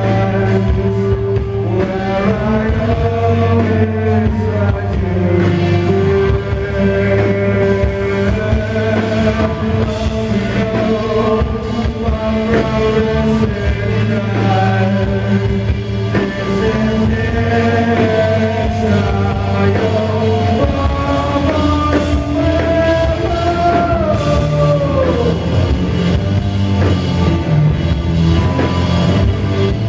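Heavy rock band playing live, with electric guitars, bass and drums under a sung vocal melody that slides in pitch.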